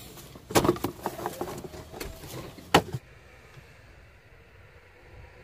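Air intake hose and ducting on a Peugeot 307 HDi diesel being pulled and worked loose by hand: a run of plastic-and-rubber knocks and clatter, loudest about half a second in, ending in a single sharp click a little under three seconds in.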